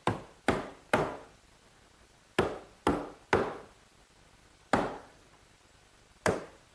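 Hammer blows on a wooden furniture frame, knocking the rail tenons home into the posts of a Mission-style sofa side: eight sharp knocks, two quick runs of three about half a second apart, then two single blows.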